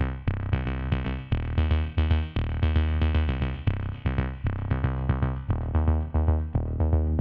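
Electronic background music with a steady drum-machine beat over a synthesizer bass line.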